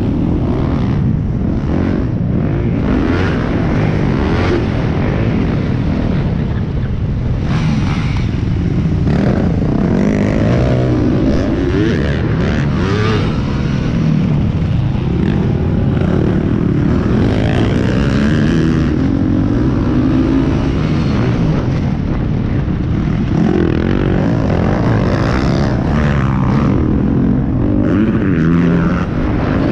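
Dirt bike engine revving hard and easing off again and again through the gears at race pace, heard on board the bike, with rough noise from the ride over it.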